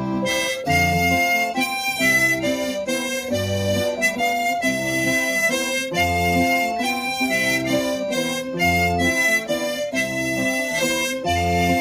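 Harmonica playing a melody over guitar accompaniment, with a low bass note that comes round every two to three seconds.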